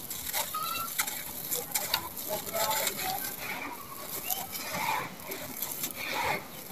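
Dry sand-cement lump crumbling between the fingers, gritty sand and grit pouring and pattering onto cement bars in many small crackles. Faint voices are heard in the background.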